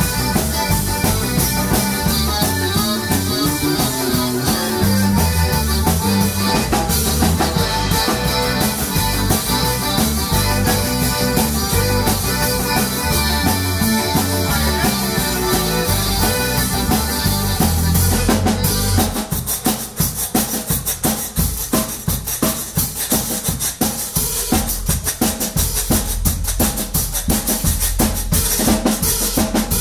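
Live zydeco band playing: accordion melody over electric bass, drum kit and washboard. About 19 seconds in, the accordion drops out and the music thins to a drum-led break with percussion.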